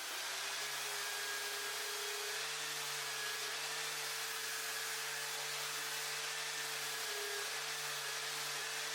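Electric power tool motor running steadily at constant speed, with a rushing hiss of air over a steady hum.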